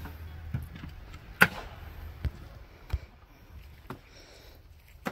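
Several sharp knocks at irregular intervals, about one every half second to a second, the loudest about a second and a half in, over a low rumble.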